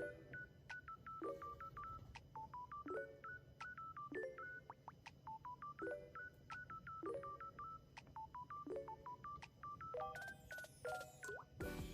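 Quiet background music: a simple looping melody of short electronic beeping notes, with a low chord returning about every second and a half.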